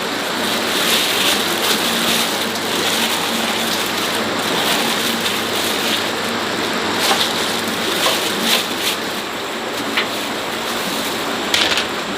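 Rain falling steadily, with a few sharper ticks of drops now and then.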